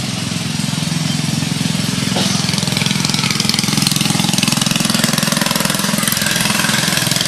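A small engine running steadily at idle with a rapid, even pulse; a higher buzzing sound grows louder about two seconds in.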